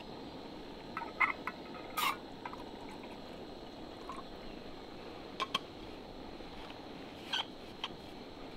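Clicks and knocks of an insulated flask being opened and closed, with a short pour of liquid from it into a small camping pot, over a steady background hiss. The loudest knock comes about two seconds in.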